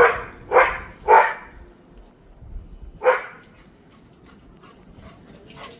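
A dog barking: three quick barks in a row, then one more bark about three seconds in.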